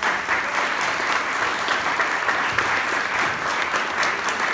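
Audience applauding steadily, a dense spatter of many hands clapping.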